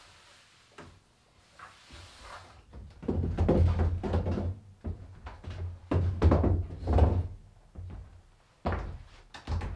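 Wooden chairs being moved: several loud knocking, scraping bursts against a wooden floor, starting about three seconds in.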